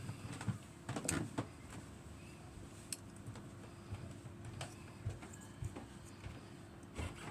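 Lever-lock picking tools working inside a lever lock: scattered small metallic clicks and scrapes, with a cluster of them about a second in, as the levers are lifted under tension.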